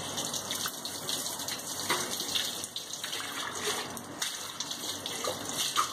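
Tap water running and splashing over a copper jug as it is rinsed clean, spraying onto a granite sink, with a few light splashes and knocks.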